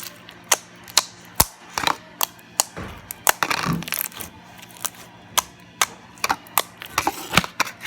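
Slime being squished and stretched by hand, giving off a run of sharp clicking pops, about two a second, at an uneven pace.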